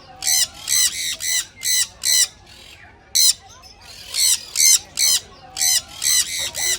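Parrot squawking: loud harsh screeches repeated two or three a second in runs of three or four, with a short pause about halfway through.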